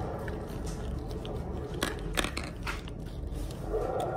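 Close handling noise from hands working a small toy right by the microphone: a low rumble with a few sharp clicks and crackles about two seconds in.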